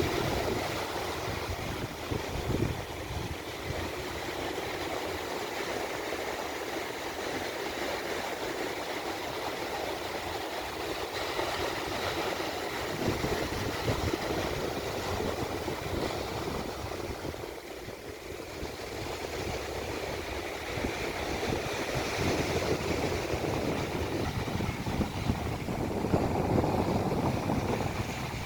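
Sea surf washing onto a beach, a steady rush that eases briefly past the middle and swells again near the end, with some wind buffeting the microphone.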